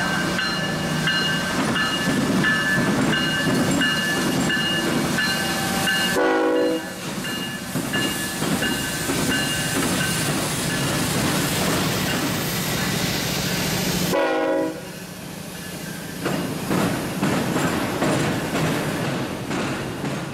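A CSX diesel locomotive runs past, followed by a long string of autorack freight cars rolling by with their wheels clattering on the rails. A repeating high ringing sounds through the first six seconds, and a short horn-like tone comes about six seconds in and again about fourteen seconds in.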